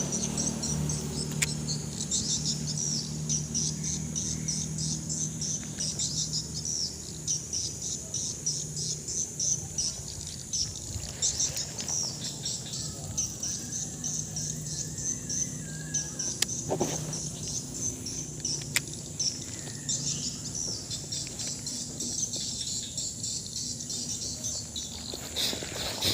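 A chorus of insects chirping in rapid high-pitched pulses, with a faint bird call partway through and a few sharp clicks.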